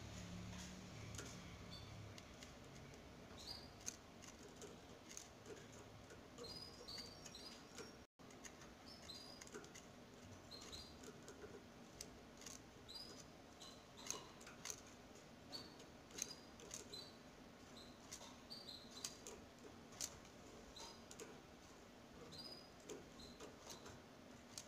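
Faint, high squeaky peeps of seven-day-old canary nestlings, coming irregularly and mixed with soft clicks, with a brief dropout about eight seconds in.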